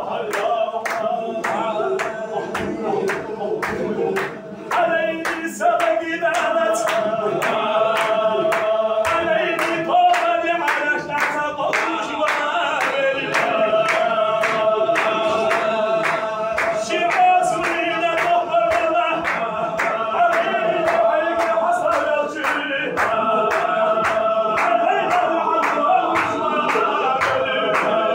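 A group of men chanting a Sufi zikr in unison, holding a sustained melodic line over a steady, fast beat of sharp claps.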